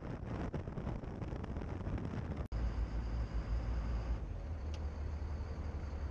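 Engine noise and wind on the microphone aboard a moving boat. The sound drops out for an instant about halfway through, and a steadier low hum continues after it.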